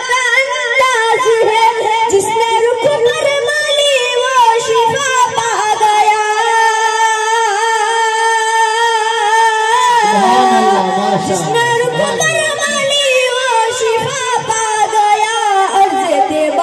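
A naat being sung: one voice holding long, wavering notes, with a lower voice briefly joining about ten seconds in.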